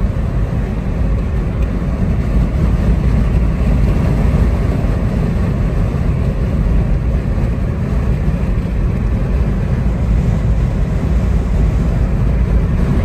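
Steady low rumble of road and engine noise inside a moving car's cabin on a highway.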